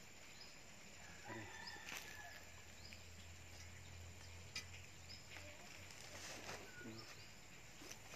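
Faint outdoor ambience: small birds chirping in short, high calls, with a few sharp knocks and scrapes from a long-handled spade digging a fence-post hole in soil.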